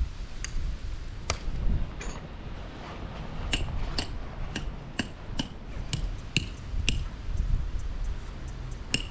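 A hammer driving metal tent pegs for a canvas swag: about a dozen sharp metallic strikes, each with a short ring, coming about two a second from about three and a half seconds in. Low wind rumble on the microphone runs underneath.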